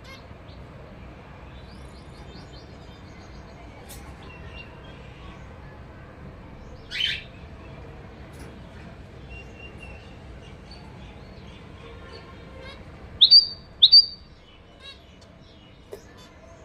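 Zebra finches calling: soft chirping throughout, one loud call about halfway, then two loud, sharp calls in quick succession later on.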